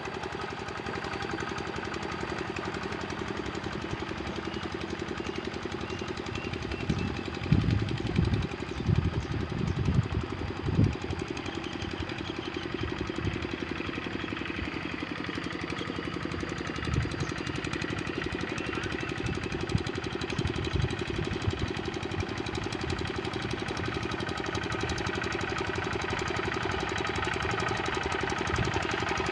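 Kubota RD65 single-cylinder diesel on a hand tractor, running steadily with a rapid chugging beat. A cluster of loud, irregular low thumps comes about a quarter of the way through, with a few weaker ones later.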